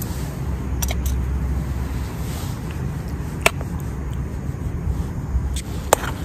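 Canister gas stove burning steadily under an aluminium pan of beans, with a metal spoon clinking sharply against the pan a few times as the food is stirred.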